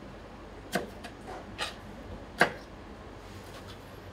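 Chef's knife cutting tomato on a plastic cutting board: a few sharp, unevenly spaced knocks of the blade hitting the board, the loudest about two and a half seconds in, with fainter ticks near the end.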